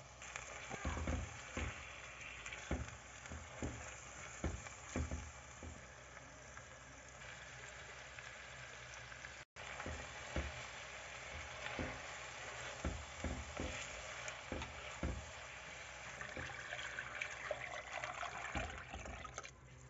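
Food sizzling in a hot pan while being stirred, with irregular knocks of a utensil against the pan. The sound cuts out for an instant about halfway.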